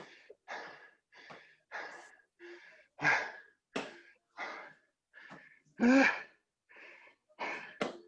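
A person panting hard from burpee exertion: quick, regular breaths in and out, about one and a half a second, with a louder exhale carrying voice about six seconds in.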